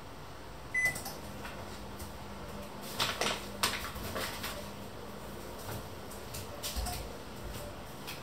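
A kitchen appliance beeps once and starts up with a steady low hum. Several clicks and knocks of kitchen things being handled follow, the loudest about three seconds in.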